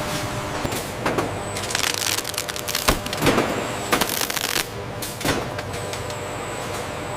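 Steady machine hum with a cluster of short hissing bursts and sharp clicks in the middle, dying away after about five seconds.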